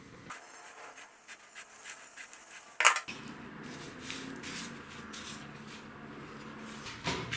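Light rustling and rubbing handling noises, with one sharp click about three seconds in; in the later part it is a hand turning an old rusty hooked knife over a sheet of paper on a stone worktop.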